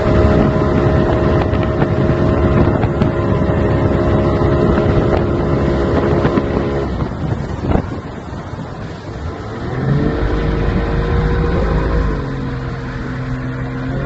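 Motorboat engine running at a steady pitch, easing off about seven seconds in, then revving back up with a rising whine near ten seconds and settling lower a couple of seconds later. Wind buffets the microphone throughout.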